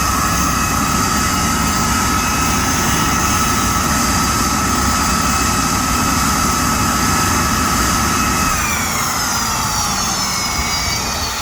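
Aircraft turbine engine running with a steady high whine over a rushing noise. About eight and a half seconds in, the whine starts to slide down in pitch as the engine spools down after shutdown.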